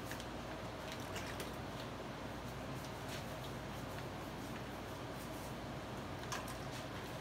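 Faint wet squishing and dabbing of plaster being worked into cloth by hand and brush, with a few soft clicks, over a steady background hum and hiss.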